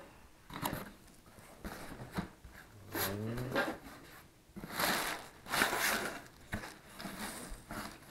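Irregular rustling and scraping of packaging being handled as a one-piece leather race suit is unpacked from its shipping box, with a short low vocal sound about three seconds in.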